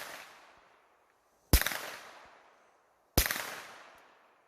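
Two suppressed 9mm pistol shots from an FN 509T fitted with a Rugged Obsidian 9 suppressor, firing regular 115-grain ammunition: one about a second and a half in and another near three seconds, each a sharp crack that trails off over about a second. The tail of an earlier shot fades at the start.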